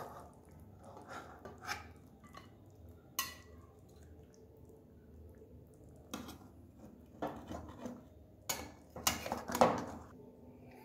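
A metal spatula knocking and scraping against a cooking pan of fish curry, in scattered strokes with a quiet stretch in the middle and several louder knocks in the last few seconds.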